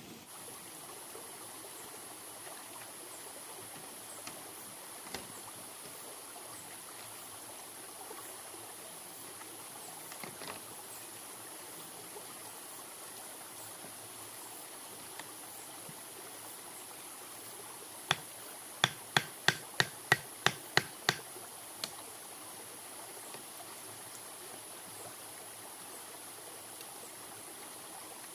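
Forest ambience: a steady high insect drone over a soft running-water hiss, broken about two-thirds of the way through by a quick run of about ten sharp knocks, roughly three a second.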